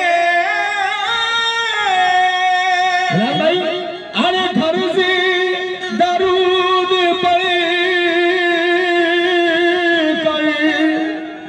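Qawwali singing: a male lead voice draws out long, wavering notes over harmonium accompaniment, with a short break about four seconds in.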